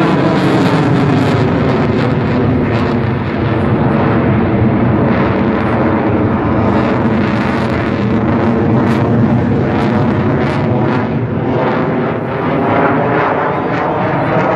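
Aircraft engine droning loudly overhead during an airshow display, its pitch sliding slightly as the plane moves across the sky. Wind buffets the microphone now and then.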